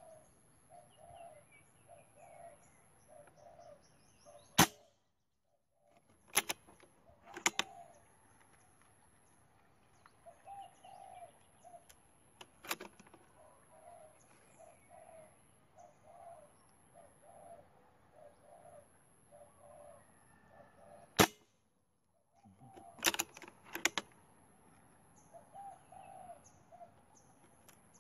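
Two sharp shots from a home-converted Armscor PCP air rifle firing pellets, about 16 seconds apart, the loudest sounds here, with smaller clicks of the rifle being handled between them. A bird calls over and over in the background.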